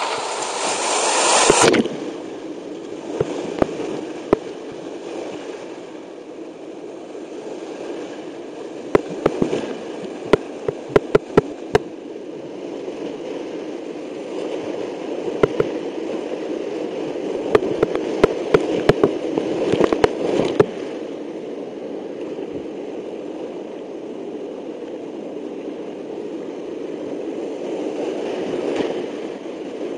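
Rushing whitewater of a steep creek heard close up from a kayaker's helmet camera, sped up to double speed. A loud splash surges over the microphone about a second in, and sharp knocks come in quick clusters about a third of the way through and again past the middle.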